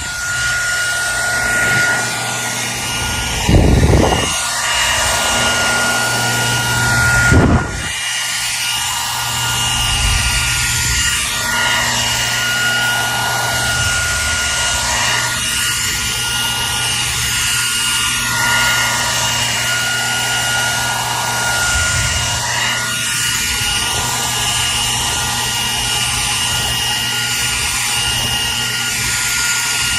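Hair dryer running steadily: a rush of air with a constant motor whine. Two brief low thuds come about four and seven and a half seconds in.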